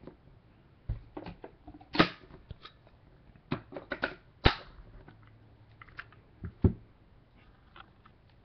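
Hands handling trading cards and hard plastic card holders, giving about a dozen irregular sharp clicks and taps. The loudest come about two seconds, four and a half seconds and near seven seconds in.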